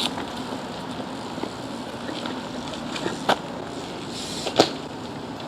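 BMX bike rolling along with a steady rumble of its tyres, with two sharp clicks about a second and a half apart in the second half.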